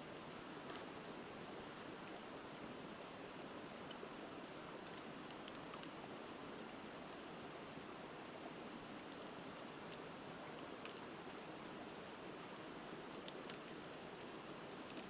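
Wood fire crackling with scattered sharp pops over the steady rush of a flowing river.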